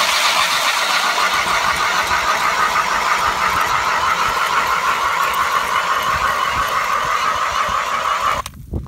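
Battery-powered Milwaukee mud mixer drill spinning a K-Drill ice auger through lake ice: a loud, steady motor whine with the auger grinding and throwing ice chips. It cuts off suddenly near the end.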